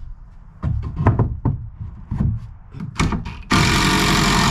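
A string of hollow knocks on wood as a 2x8 board is set against the floor joists, then, about three and a half seconds in, a power drill starts up and runs steadily, driving a fastener into the board.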